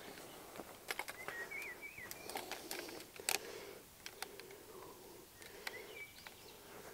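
Quiet outdoor ambience with a few scattered light clicks and taps and brief faint high, wavering chirps.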